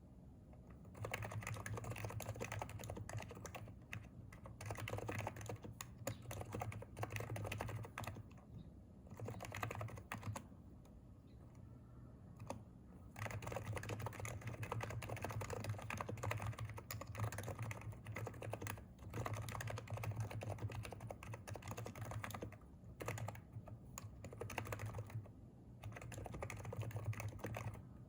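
Typing on a Hansung electrostatic capacitive (Topre-style) keyboard: runs of keystrokes starting about a second in, broken by several short pauses.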